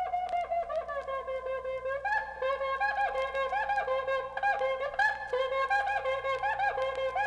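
Music: a solo wind instrument playing a lively melody of short, quick notes, many with small dips in pitch.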